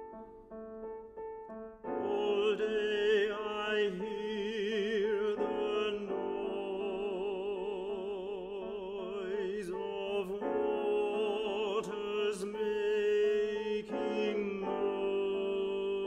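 A classical tenor sings an art song with piano accompaniment. The piano plays alone at first; the tenor comes in about two seconds in and sings a sustained line with vibrato, with a few short breaks for breath.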